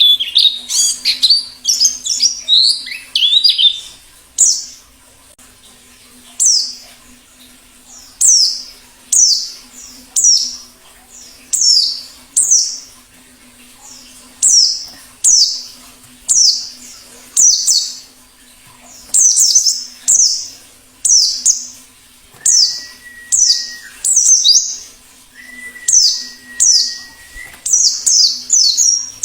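White-eye (pleci) calling: a dense burst of chattering song at first, then short, high, downslurred calls repeated about once a second with brief gaps. Twice in the second half a steady lower whistle-like tone is held for one to two seconds under the calls.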